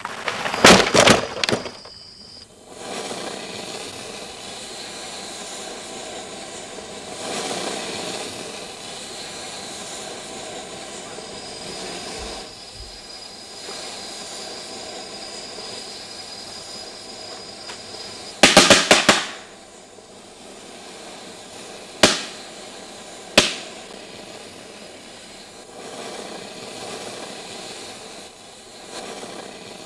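A tree branch breaking and crashing down after an axe blow: a quick run of sharp cracks, then a steady rushing noise. More isolated sharp cracks come later.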